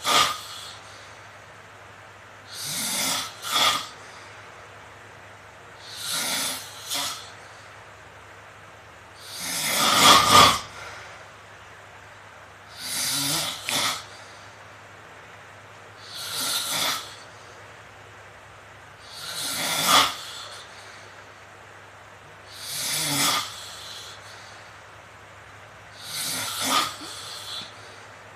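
A young man snoring loudly, one rasping snore about every three and a half seconds, many of them breaking into two quick pulses.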